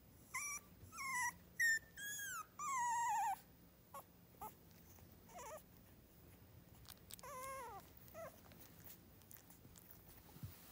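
Three-week-old miniature schnauzer puppy whimpering: a quick run of high, falling whines over the first three seconds or so, then a few shorter cries and one longer falling whine around the middle.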